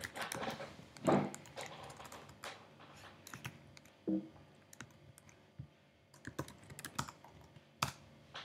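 Typing on a computer keyboard: irregular keystrokes, with a few heavier strokes among them.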